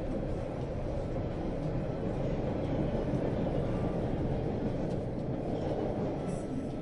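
Steady rumble of a passenger train running along the track, heard from inside the car.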